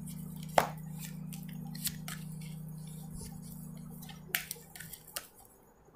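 Tarot cards being handled and laid down: scattered soft clicks and snaps, over a steady low hum that fades out about five seconds in.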